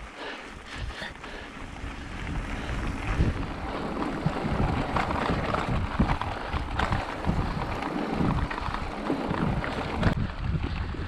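Wind buffeting the microphone of a camera on a moving mountain bike: a rough rushing noise with uneven low gusts and small crackles, louder from about three seconds in.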